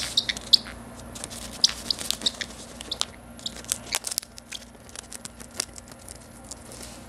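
Small pet parrot biting and tearing at paper with its beak: a run of irregular crunching and crackling nips, with a few short high squeaks in the first three seconds.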